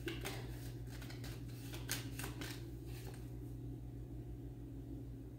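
Tarot cards being shuffled and handled, a few soft card snaps near the start and a small cluster about two seconds in, over a faint steady low hum.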